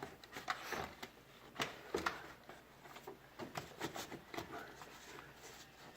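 Scattered light clicks and knocks of plastic parts being handled as the air filter box cover is fitted back over the new filter.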